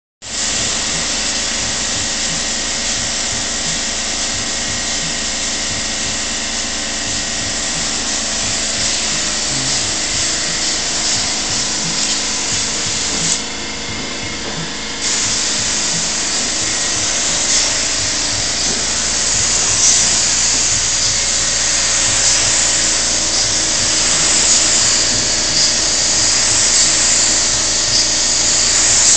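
Paint spray gun hissing steadily as a car body is sprayed, over a steady hum. The spray cuts off for about two seconds near the middle, then starts again somewhat louder.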